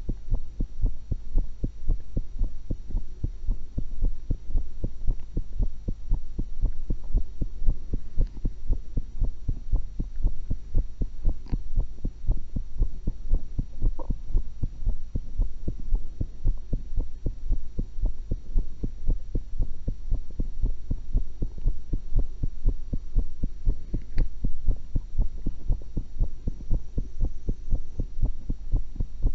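A human heartbeat heard through a stethoscope: steady, regular low beats that repeat evenly throughout.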